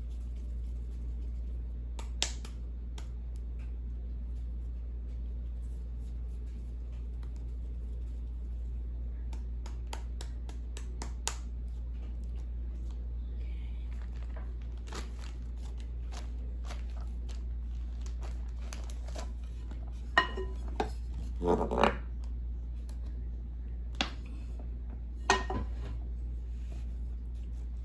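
Scattered clicks, knocks and rustles of hands shaping corn masa dough into tortillas, busier in the second half with a cluster of louder knocks, over a steady low hum.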